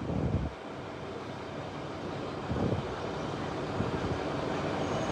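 A vehicle engine running steadily under a haze of street noise, with brief faint voices near the start and about two and a half seconds in.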